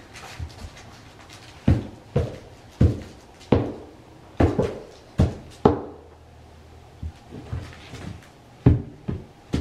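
A French Bulldog puppy scuffling and pouncing on a toy on a blanket-covered floor: a run of irregular soft thumps and knocks, about ten in all, with a pause for a couple of seconds near the end.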